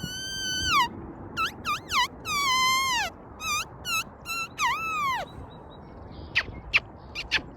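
A baby's high-pitched squeals: a string of loud squeaky cries, some held and then falling and some arching up and down. A few short sharp squeaks come near the end.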